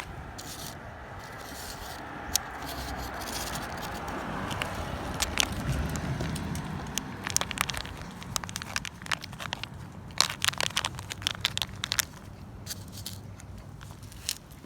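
A cat eating, with quick wet clicks of licking and chewing that come thick and fast through the second half.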